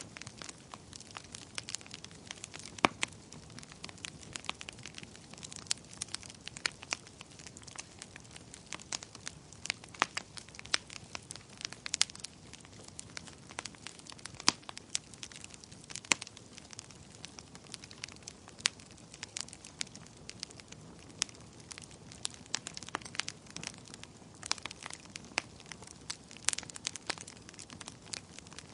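Wood fire crackling: frequent irregular sharp pops and snaps over a soft steady hiss.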